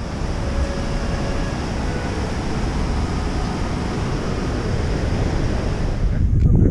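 Steady rushing of a whitewater mountain river, with wind rumbling on the microphone. The rush drops away about six seconds in.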